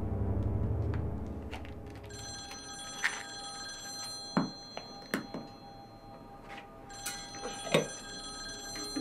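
Desk telephone ringing in two bursts of high, steady electronic tones, the first starting about two seconds in and the second about seven seconds in. Several sharp knocks fall around and between the rings. A low musical drone fades out in the first couple of seconds.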